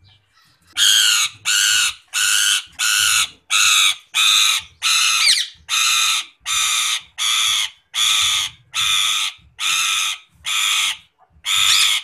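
Indian ringneck parakeet calling: a steady run of about sixteen loud, evenly spaced calls, about three every two seconds, starting about a second in.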